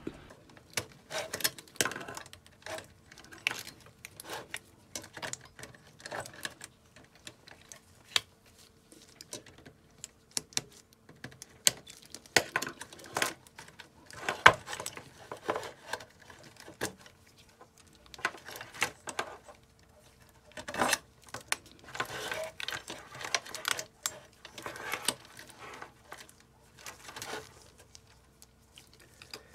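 Irregular clicks, snips and rustling of hands working the wire bundle of an opened ATX PC power supply, cutting its cable ties with diagonal cutters and shifting the wires and circuit board.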